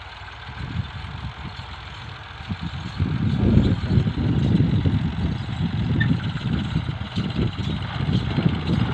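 Ford 4000 tractor engine running while the tractor works the field, heard from a distance as a steady drone under a low, uneven rumble that grows louder about three seconds in.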